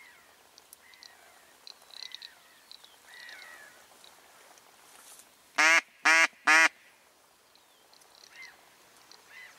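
A duck quacking three times in quick succession, loud and close, about half a second between quacks. Faint small-bird chirps come and go around it.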